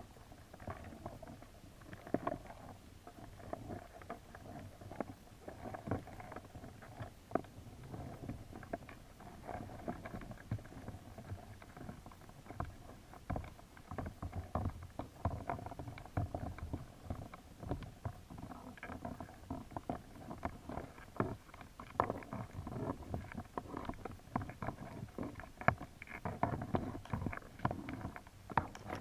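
Muffled underwater sound through a GoPro's waterproof housing: a low rumble of moving water with frequent irregular small clicks and knocks.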